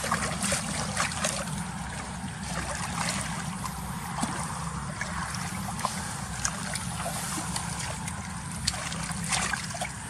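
Water splashing and trickling in small irregular bursts over a steady low rumble.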